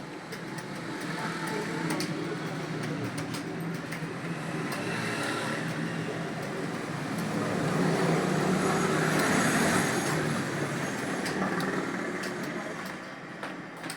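Keyboard keys clicking sparsely during typing, under a steady rushing noise that swells to its loudest a little past the middle and then fades.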